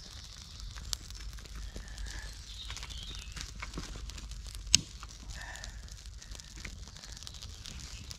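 Freshly lit campfire of birch bark and dry twigs crackling as it catches, with scattered sharp pops and one loud snap about five seconds in.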